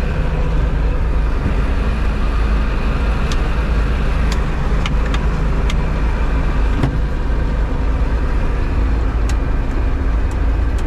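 Massey Ferguson 850 combine's Perkins diesel engine running steadily, newly brought back to life after years of sitting unused, with a few short sharp clicks over it.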